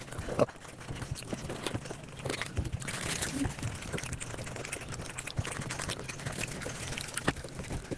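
Mukbang eating sounds played back at five times speed: a fast, dense jumble of chewing, biting and crunching clicks, with one louder click about half a second in.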